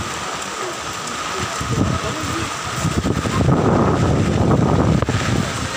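Heavy rain hissing steadily, with wind buffeting the phone's microphone in low rumbling gusts that are loudest a few seconds in.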